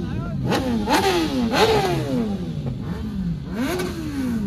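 Motorcycle engine revved in four quick throttle blips, each rising fast in pitch and dropping away more slowly.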